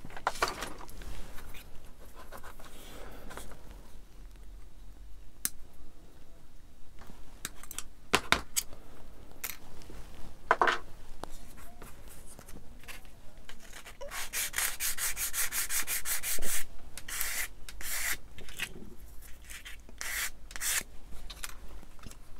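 Small model-kit parts being rubbed and scraped on a workbench, with scattered light clicks as parts are handled and a quick run of short back-and-forth strokes about two-thirds of the way in.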